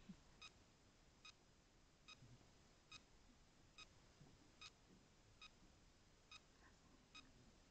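Near silence broken by a faint, short, high beep that repeats evenly, a little more than once a second.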